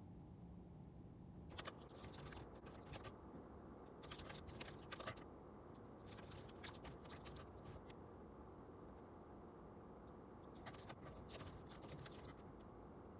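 Keyboard typing: faint key clicks in four short bursts, over a low steady room hum.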